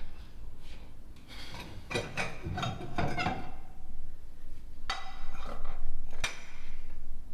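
Scattered knocks and clinks of hard objects being handled, in a cluster about two to three seconds in and again as single sharper knocks near the end.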